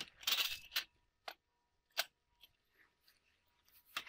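A wooden board scrapes briefly against the steel bench top and vise jaws, followed by a few sharp, separate metal clicks as a homemade lever-action quick bench vise is closed on it.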